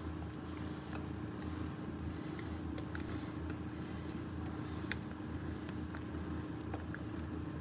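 Steady low mechanical hum of a running kitchen appliance, with a few faint clicks and crinkles from a plastic bag as batter is poured into it.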